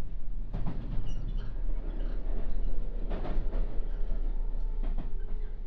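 Interior running noise of a JR West 221 series electric train, heard inside motor car MoHa 220-8: a steady low rumble with a few sharp clicks, and a steady hum coming in near the end.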